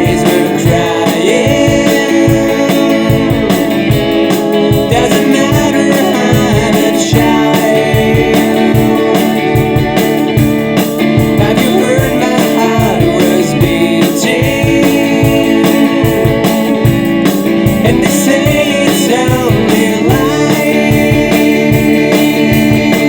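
Band music: guitar and organ held over a steady drum beat, with a wavering melodic lead line on top.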